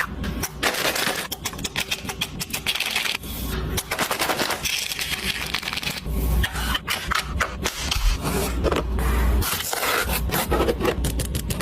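Rapid, irregular clicks, knocks and scraping of items being handled and set into a mini fridge during a restock.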